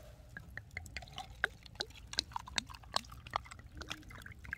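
Soju being poured from a bottle into a small glass: a string of irregular gurgles and drips.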